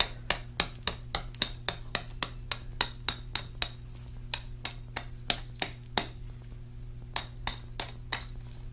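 Small hammer tapping the glassy flux slag off a freshly cast silver button: sharp taps about five a second at first, then slower and more spaced out after a short pause.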